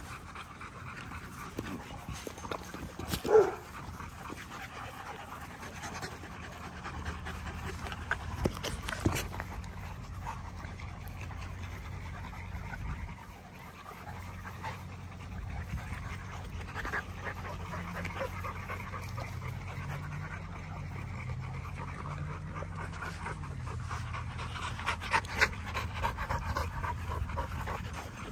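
XL American Bully puppies panting and moving about on grass, with a low steady hum underneath. A single sharp knock about three seconds in is the loudest sound.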